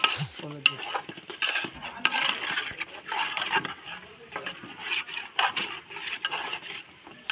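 Metal spatula stirring and scraping thick mutton curry in a large aluminium pot, in irregular swishes with sharp clinks of metal on the pot.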